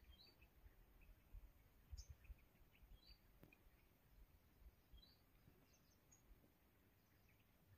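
Near silence: faint outdoor ambience with scattered short, high bird chirps over a low rumble.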